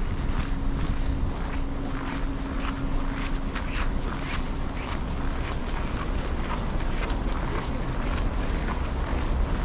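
Wind buffeting the microphone with a low rumble, over a steady low hum, with crunching steps in snow about twice a second.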